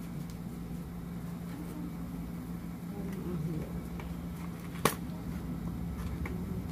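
A cardboard product box being handled and opened by hand, with one sharp click about five seconds in, over a steady low hum.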